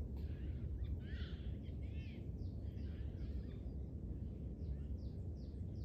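Wild birds calling repeatedly in short, arching chirps over a steady low rumble.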